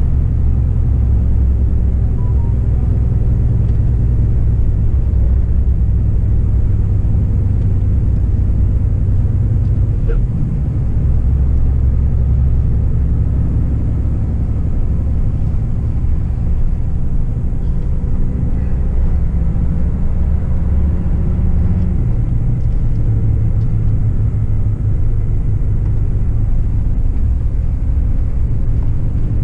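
Scania R450 timber truck's 13-litre straight-six diesel pulling a full 50-tonne load, heard from inside the cab as a steady low engine rumble. The engine note dips briefly about ten seconds in.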